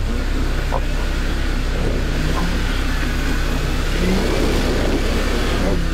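Land Rover Discovery's engine revving hard under load as it tries to climb a rocky step, with rough noise from tyres scrabbling on the rocks; the revs rise about four seconds in. One wheel is spinning without enough grip, the truck having no lockers and only a centre diff lock.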